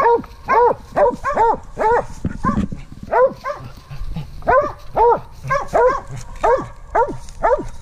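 Mountain Cur barking treed: a fast run of short chop barks, about three a second, in bursts with brief pauses. Barking treed is the sign that the dog has a squirrel up the tree.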